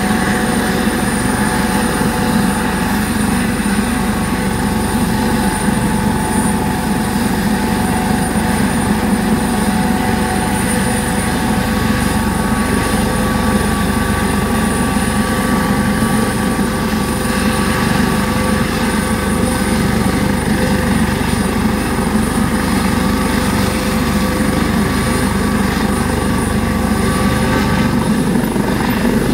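Eurocopter AS365 Dauphin helicopter running on the ground, its twin turbine engines and rotor turning steadily with a constant high turbine whine. Near the very end the whine begins to rise in pitch as power comes up.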